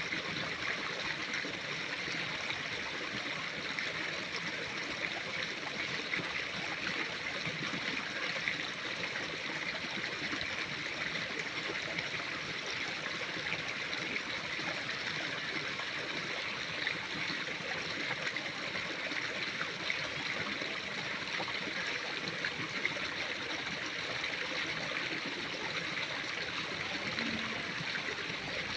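Flowing water running steadily without a break, with a fine trickling texture.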